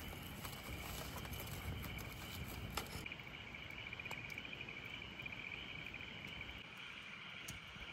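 Crickets chirping steadily in a continuous pulsing trill. For the first three seconds a wood campfire crackles with sharp pops, then stops abruptly.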